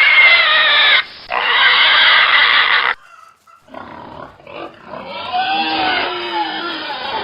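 Pigs squealing: two long, loud, high-pitched squeals, the first about a second long and the second about two. After a brief pause come quieter, lower-pitched squeals and grunts.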